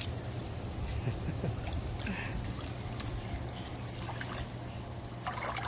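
Hot tub jets running, churning and bubbling the water, over a steady low hum from the jet pump.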